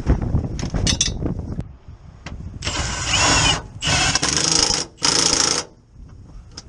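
Impact wrench hammering on a bolt in three short bursts, each about a second long, after a few low knocks at the start.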